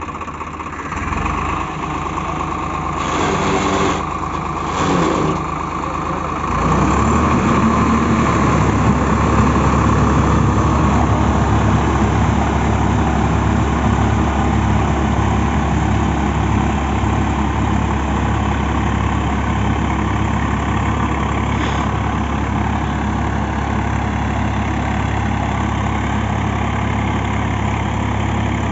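Tractor diesel engine running with a rotary tiller (rotavator) working the mud behind it. A few short knocks come in the first five seconds. From about seven seconds in the engine runs louder and steady with a deep rumble.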